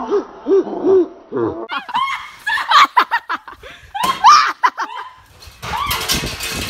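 People laughing hard in short bursts, rising to high-pitched shrieking laughter in the middle, with a burst of rustling noise near the end.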